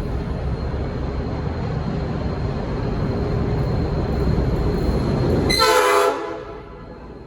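Diesel freight locomotives running closer, their rumble growing steadily louder. About five and a half seconds in comes one short, loud blast of a Nathan P5 five-chime horn, a chord of several tones.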